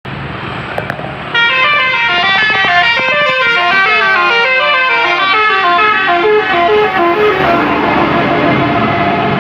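Basuri multi-tone "telolet" bus horn playing a melody of stepped notes, several trumpets sounding together, starting about a second in; a few sliding notes come in the middle.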